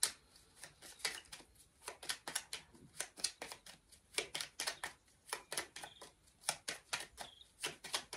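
A deck of tarot cards being shuffled by hand: a continuous run of quick, soft clicks and flicks, several a second at uneven spacing, as the cards slide and tap against each other.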